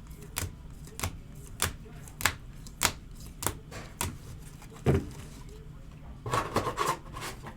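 2022 Bowman's Best baseball cards being flipped one by one, a sharp snap or tap about every 0.6 seconds.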